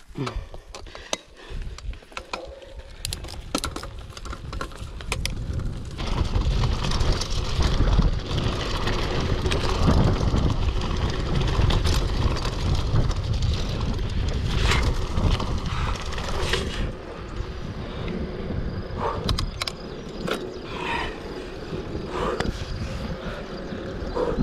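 Mountain bike rolling fast downhill over dirt and grass, with wind rushing over the microphone and the bike rattling over bumps. It grows louder about six seconds in and eases off about seventeen seconds in, with scattered clicks and rattles.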